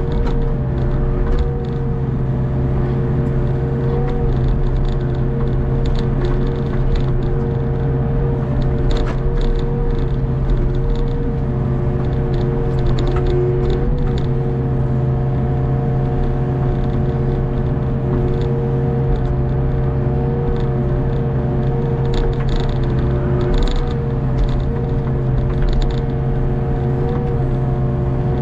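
Hitachi ZX48U mini excavator's diesel engine running steadily under load with a steady whine above its low hum, heard from the operator's seat while the arm digs and swings. Scattered light clicks and scrapes sound over it.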